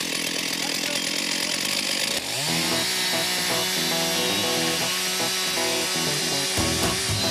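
Stihl chainsaw ripping lengthwise along a log to cut planks. About two seconds in, its engine revs up to full throttle as the chain bites into the wood.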